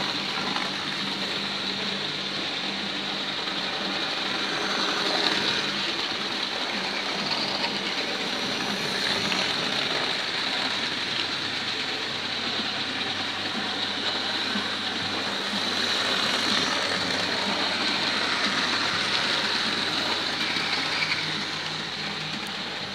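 Electric model train running around the track: a steady whirr of its small motor and the rolling of its wheels on the rails.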